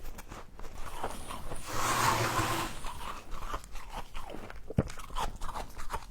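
Close-up crunching and chewing of mouthfuls of frost: irregular crisp crackles, a denser run of crunching about two seconds in and one sharp snap near five seconds.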